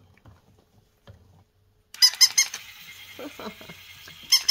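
Battery-powered walking plush toy dog switched on about two seconds in: a fast, even clicking rattle of about nine beats a second from its motor and legs, with a few short squeaky calls in the middle, louder again near the end.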